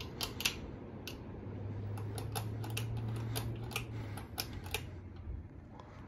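Bahama 52-inch ceiling fan running, its motor humming low and steady while light, irregular clicks and ticks sound throughout; the hum fades out about five seconds in.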